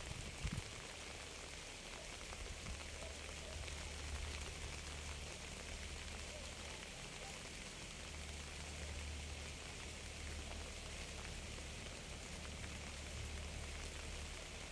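Steady, even rain with a low rumble underneath.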